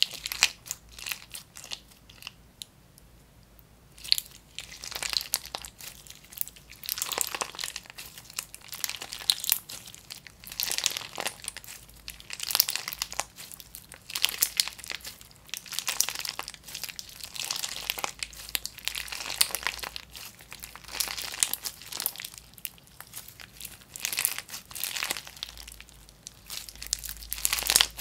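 Clear slime packed with hard clear cube pieces and beads being squeezed, folded and pressed in the hands, giving bursts of crunching and crackling every second or two. The first few seconds are quieter, with only a few small crackles.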